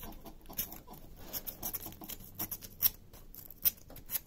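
Small piece of sandpaper rubbed in short, irregular strokes over laser-cut wood, cleaning off laser burn marks, with two sharp clicks in the second half.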